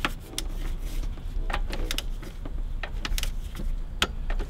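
Scattered, irregular metallic clicks and clinks of hand tools working a bolt on the engine's pulleys, over a low steady hum.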